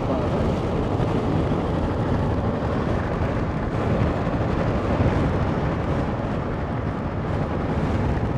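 Steady low rumble of wind and road noise from a vehicle travelling at highway speed.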